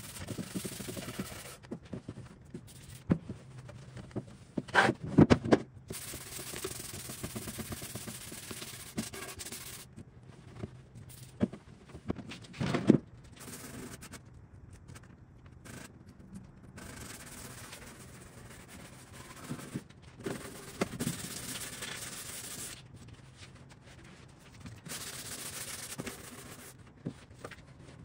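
Cloth wiping over a sanded wood finish, rubbing in stretches with pauses, as the dresser is cleaned with a denatured alcohol and water mix. A few knocks sound among the wiping, the loudest about five seconds in and again near thirteen seconds.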